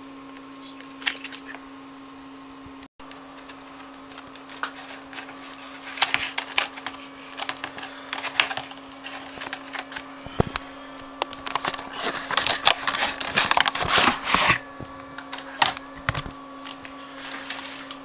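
Hands handling small laptop and drive parts: irregular clicks, taps and rustles of plastic and metal, thickest about two-thirds of the way through, over a steady low electrical hum.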